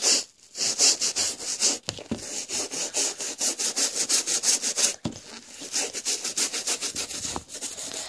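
Toothbrush scrubbing canvas shoe fabric with a baking soda and washing-up liquid solution: quick, even back-and-forth scratchy strokes, several a second, with a brief break about half a second in.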